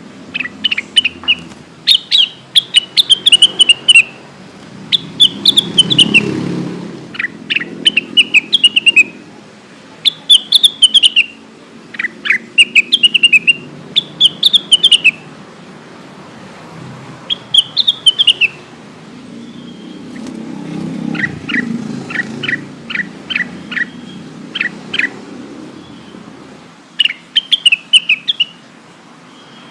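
Cucak wilis leafbird singing: loud, repeated short phrases of quick, sharp descending whistled notes, given in bursts with brief pauses, and near the end a run of rapid single downslurred notes. A faint low rumble rises and fades in the background twice.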